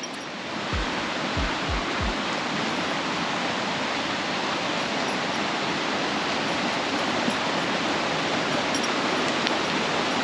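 Creek water rushing over rocks in a steady, full rush that swells during the first second and then holds. The creek is running high. A few low thumps come in the first two seconds.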